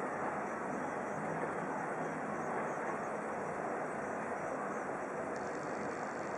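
Steady outdoor city background noise: an even, continuous hum of distant traffic and street din with no distinct events.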